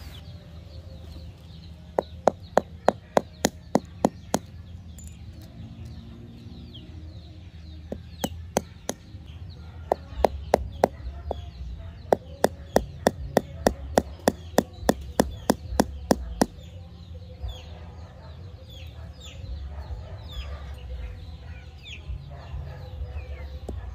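Hammer tapping a small nail into the base of a glazed ceramic pot to punch a drainage hole. The light, sharp taps come in quick runs of about three a second, with pauses between; the longest run lasts about six seconds in the middle.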